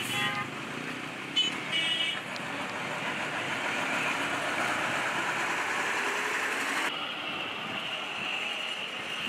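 Steady street traffic noise with short car horn toots about one and a half and two seconds in.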